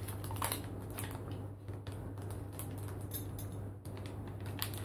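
Faint, scattered clicks and taps of small objects being handled, over a steady low room hum.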